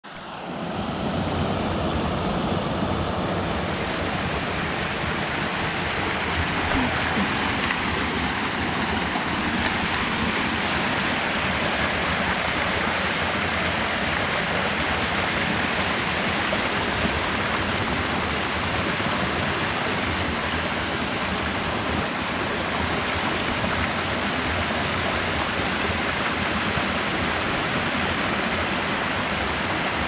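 Mountain stream rushing over boulders in small cascades: a steady, even rush of water that fades in over the first second.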